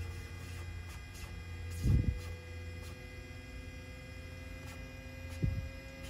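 Steady electrical hum from a Cessna 172's cockpit avionics powering up on battery, with a faint whine slowly rising in pitch. Two dull low thumps, about two seconds in and near the end.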